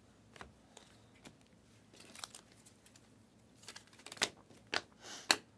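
A stack of glossy Panini Prizm trading cards handled and flipped through by hand. Scattered light clicks and short slides of card against card, the louder ones coming in the last couple of seconds.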